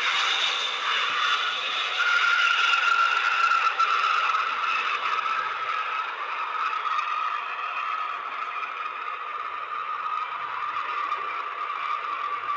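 Turbofan engines of a Dassault Falcon 8X business jet whining as it rolls out along the runway after touchdown. The whine slowly falls in pitch and eases in level over a steady rush.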